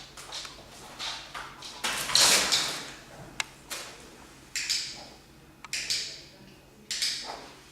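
A dog sniffing in irregular noisy bursts of a second or less, the loudest about two seconds in, with a couple of sharp clicks in between.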